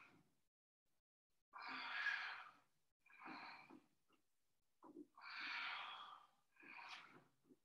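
Audible breathing paced with yoga side bends: four breaths, two longer ones of about a second, each followed by a shorter one.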